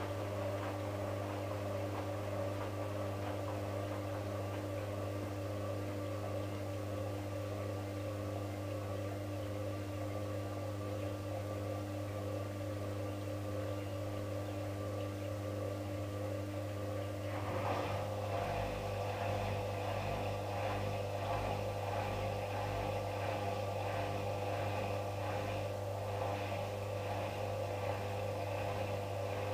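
Hotpoint WM63 washing machine running its spin-rinse: a steady motor and pump hum with several steady tones. About halfway through the sound grows fuller, with a low rumble added.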